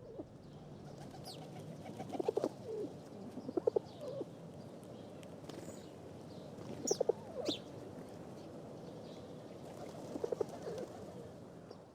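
Pigeons cooing: about four short runs of low, pulsed coos, with a few brief high calls from other birds in between.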